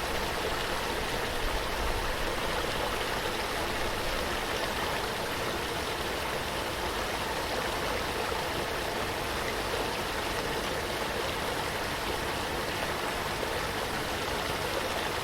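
Running water of a stream or small waterfall flowing in a steady, even rush with no change in level.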